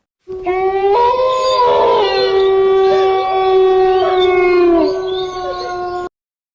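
Several dogs howling together in long, drawn-out tones. A low howl is joined about a second in by a higher one, and the howling cuts off abruptly near the end.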